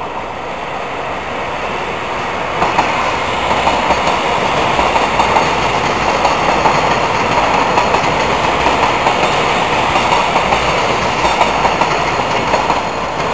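A Taiwan Railways EMU500 electric commuter train passing close by at speed: steady rumble from the running gear with a rhythmic clickety-clack of wheels over rail joints. It grows louder over the first seconds as the cars arrive, then stays loud and drops off at the very end.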